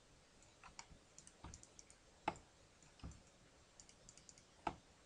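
Faint, irregular clicks of a computer mouse and keyboard, about half a dozen sharp ones spread over the few seconds.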